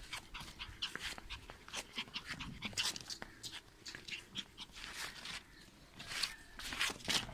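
A fluffy white puppy breathing in quick, short, breathy puffs, several a second and unevenly spaced.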